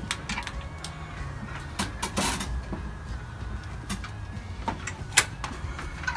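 Scattered clicks and knocks from someone walking and handling things on a wooden structure in the dark, with one sharp knock about five seconds in.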